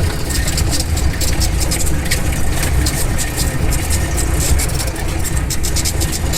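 Jeep engine running steadily on a rough track, with frequent rattles and knocks running through it.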